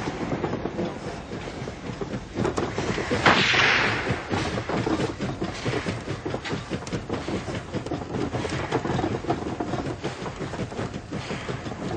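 Steam locomotive running with dense clattering, with a sudden loud burst about three seconds in.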